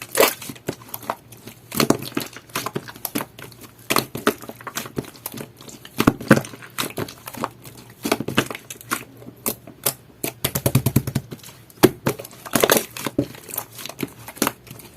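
Jelly-textured slime being squeezed and pressed by hand, giving off quick clusters of sticky clicks and pops.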